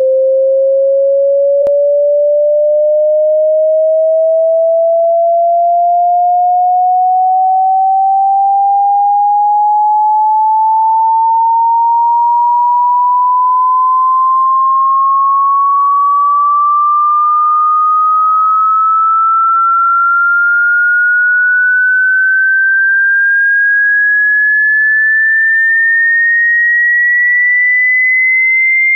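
A single pure sine tone gliding slowly and smoothly upward in pitch at a steady loudness. It is a hearing-test frequency sweep that rises until the listener can no longer hear it.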